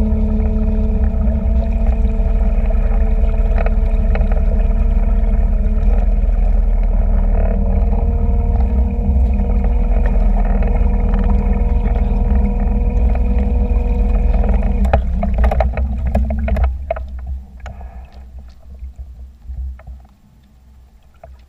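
A small boat's motor running at a steady pitch, then cutting out about three-quarters of the way through. After that, only quieter water splashes and lapping remain.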